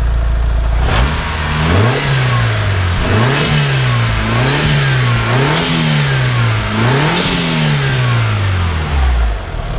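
Mitsubishi Lancer Evolution 6's turbocharged 4G63 inline-four, revved by hand at the throttle with about five rising and falling blips. Near the end it drops back to a smooth idle.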